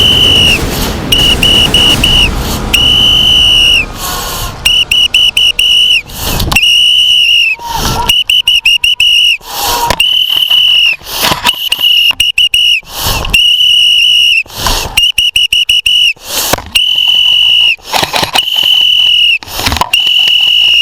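A whistle blown over and over, mixing long blasts of a second or so with quick runs of short toots. Short noisy bursts fall between the blasts.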